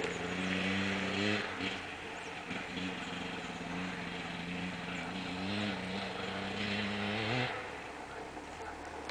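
Enduro motorcycle engine running under throttle, its note rising and falling several times, fading after about seven and a half seconds.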